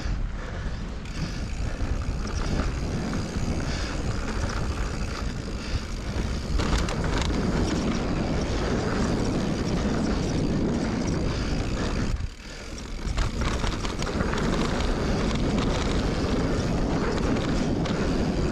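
Giant Reign mountain bike riding fast down a dirt singletrack: tyres rolling over the packed trail, the bike rattling, and wind buffeting the helmet-camera microphone, all blending into a steady rush. The noise drops out briefly about twelve seconds in, then returns.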